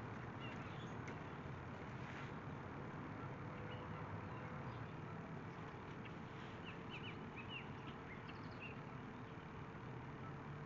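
Faint steady outdoor background with a low hum, and a few short bird chirps about two-thirds of the way through.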